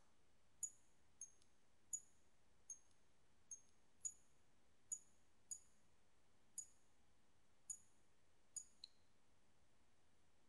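About a dozen short, high-pitched clicks at irregular intervals of about half a second to a second, stopping about nine seconds in.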